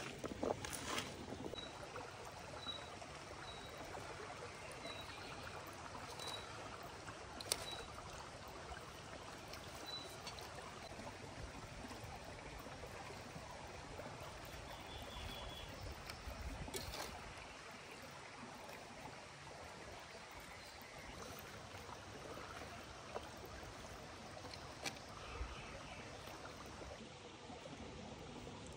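Steady rushing of running water, with a few sharp clicks scattered through and a short series of faint high chirps in the first ten seconds or so.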